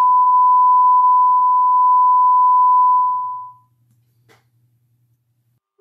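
A steady, pure sine test tone played through the Lepy LP-2051 amplifier into a speaker, fading out about three and a half seconds in, with a faint low hum beneath it. A faint click follows shortly after.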